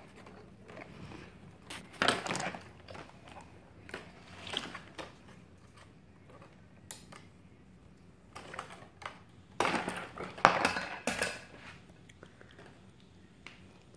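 Scattered rustling and clicking as a doll's cardboard-and-plastic packaging is handled and a tie is snipped with scissors, with louder bursts of handling about two seconds in and again around ten seconds.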